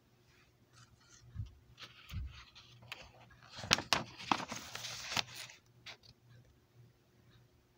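Paper pages of a book being handled and turned. Two soft thumps come first, then a rustle with sharp crackles of paper from about three and a half seconds in, lasting a couple of seconds.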